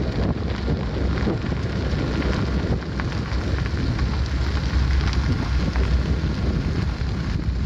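Wind buffeting the microphone: a steady, rumbling noise with scattered faint crackles.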